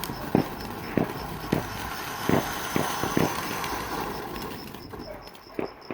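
Fireworks going off, a string of sharp bangs at irregular intervals about half a second apart, then one more near the end, over a steady hiss that fades after about five seconds.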